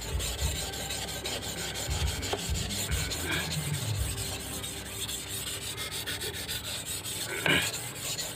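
A88 steel golok (machete) blade stroked rapidly back and forth by hand across a whetstone: a continuous scraping grind of steel on stone. There is one brief, louder knock near the end.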